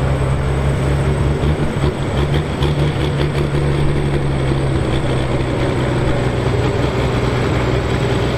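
Valmet tractor's six-cylinder diesel engine running at a steady low speed as the tractor moves slowly, a deep even drone with no revving.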